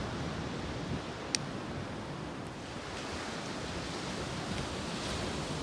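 Steady rush of sea waves washing on the shore, with one sharp click about a second and a half in.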